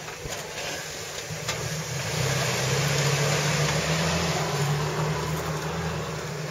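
Jeep Wrangler TJ Sport's 4.0-litre straight-six engine running at low revs as the Jeep crawls through mud, a steady low drone that gets a little louder about two seconds in as it passes close by.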